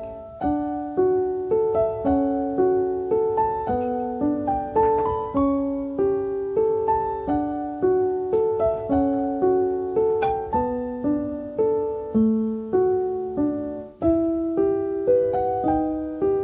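Solo piano background music: a melody of single struck notes, each dying away, about two notes a second.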